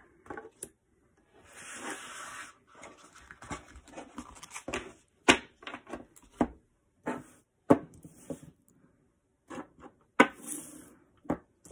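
Oracle cards swept together and slid across a hard tabletop, rustling, with a string of sharp taps and knocks as cards and small stones are set down on it.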